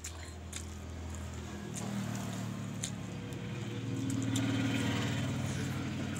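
A motor vehicle's engine running steadily close by, growing louder from about two seconds in. A few short clicks sound over it.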